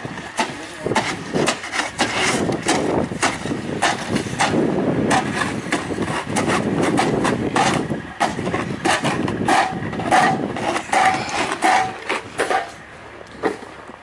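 Several snow shovels scraping and knocking on a paved driveway as snow is cleared: a dense run of irregular scrapes and clacks that thins out near the end.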